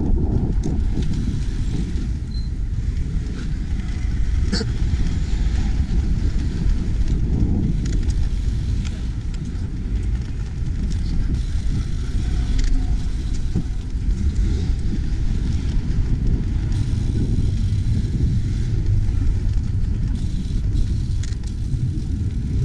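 Steady low rumble of city traffic mixed with wind buffeting the microphone of a chest-mounted action camera on a moving bicycle, with a short sharp tick about four and a half seconds in.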